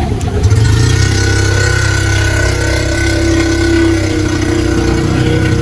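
Motor vehicle engine running steadily at idle, its even hum settling in about half a second in.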